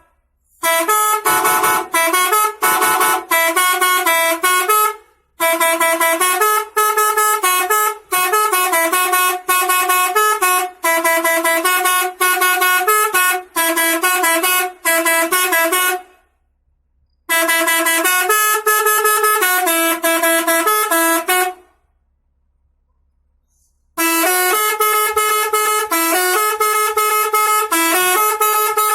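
Bus 'telolet' multi-tone horn, an 18-button set, playing melodies: quick runs of short pitched horn notes in phrases, with brief pauses between them and a silence of about two seconds about three quarters of the way through.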